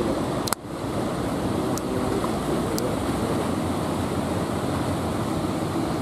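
Heavy surf: big waves breaking and washing onto the beach in a steady roar. A sharp click and a brief dip in the sound come about half a second in.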